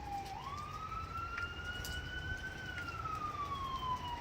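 Emergency vehicle siren wailing: one slow cycle that rises quickly about half a second in, holds briefly, then falls slowly.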